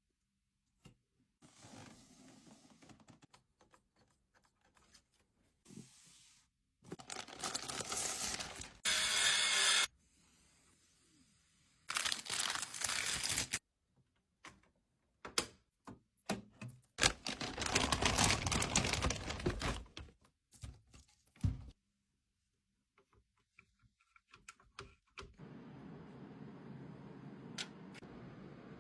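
Packaging of PC parts being torn and crinkled, with scattered clicks and knocks, in short stretches that start and stop abruptly.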